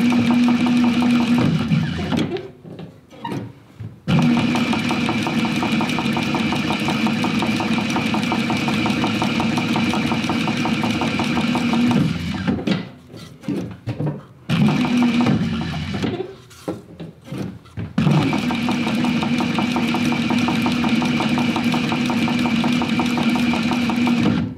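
Servo-driven Techsew 2750 Pro cylinder-arm leather sewing machine stitching leather at a steady fast pace with a hum under the rapid needle strokes. It runs in long stretches broken by short stop-and-start bursts, as it stops to turn or reposition the leather.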